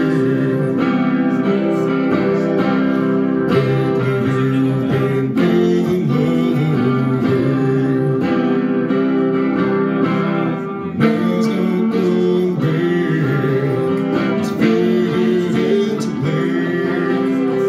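Live solo performance: strummed chords on a semi-hollow electric guitar with a man singing.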